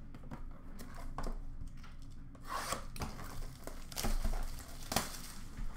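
Cardboard hockey-card blaster box being picked up, handled and torn open: irregular rubbing, crinkling and tearing, with louder bursts about halfway through and a sharp click about five seconds in.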